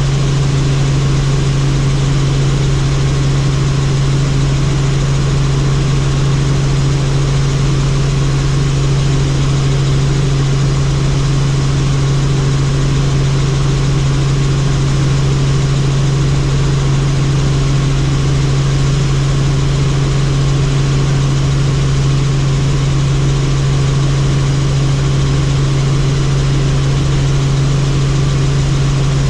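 Helicopter in flight, its engine and rotors running at a steady loud drone: a constant low hum over an even rushing noise, with no change in pitch or level.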